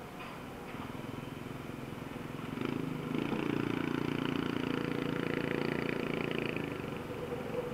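Motorbike running through slow street traffic, heard from the bike itself, with road and wind noise. Engine noise grows louder about two and a half seconds in, holds as a steady hum, and eases off near the end.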